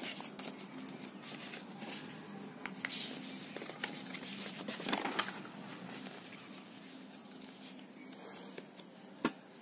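Quiet rustling of notebook paper as pages are handled, with small scattered clicks and taps of a pen, over a faint steady low hum.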